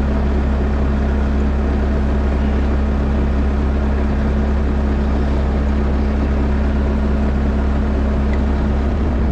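A vehicle engine running steadily at an unchanging speed: a loud, even low drone with a steady hum in it.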